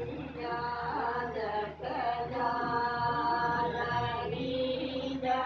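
A voice chanting a Hindu ritual mantra in long, held notes, pausing briefly for breath about two seconds in. A steady low hum runs underneath.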